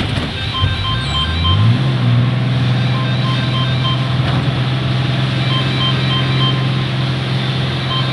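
A vehicle engine rising in pitch over about the first second and a half as it speeds up, then holding a steady low hum.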